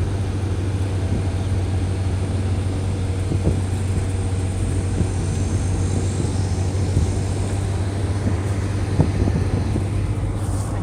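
Steady low drone of an engine running at an even speed, with a few faint brief clicks.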